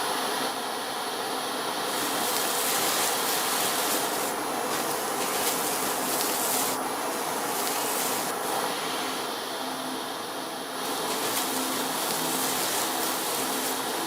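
Cordless stick vacuum cleaner running, its high hiss of rushing air swelling and dropping every few seconds.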